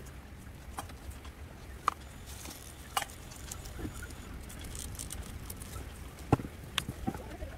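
Scattered sharp clicks and small taps, about six of them, over a low steady hum, from a knife cutting succulent stems and cuttings being handled. The loudest click comes a little past the middle.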